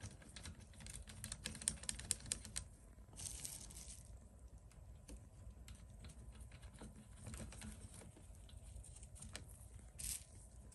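Light, irregular clicks and ticks of small nuts and plastic parts being handled and started on the studs of a hedge trimmer's air-filter cover plate, with a brief rustle about three seconds in and another near the end.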